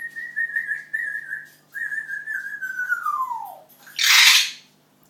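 Pet parrot whistling: a long high whistle with a slight warble, then a second whistle that slides down in pitch at its end. About four seconds in comes a loud, harsh, noisy burst, the loudest sound.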